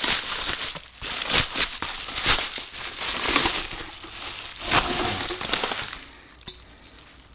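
Plastic bubble wrap crinkling and rustling as it is pulled off a metal exhaust pipe, in irregular crackling bursts that die down about six seconds in.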